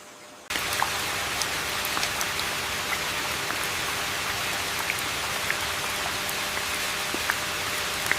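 Steady rain: a dense, even hiss with scattered individual drops ticking on top. It cuts in suddenly about half a second in.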